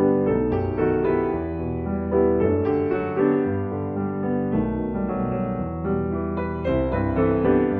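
Background music: a slow keyboard or piano piece with sustained chords over a steady bass.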